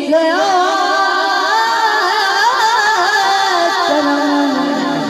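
A boy singing a Punjabi naat through a microphone and PA: a single high voice with quick ornaments bending up and down, settling onto a long held note near the end.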